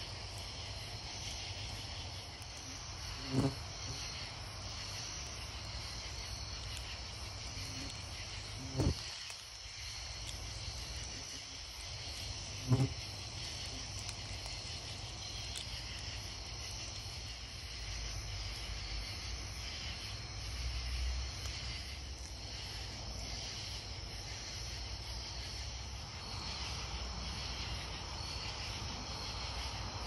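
Steady night-time chorus of crickets and other insects, a high, even trilling. It is broken by three short thumps, about three, nine and thirteen seconds in.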